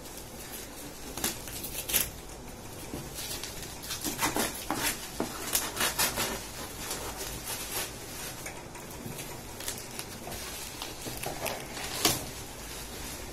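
Bubble wrap and plastic packaging crinkling and crackling as it is handled and pulled off a cardboard laptop box. Irregular sharp crackles, thickest in the middle, with a couple of louder snaps.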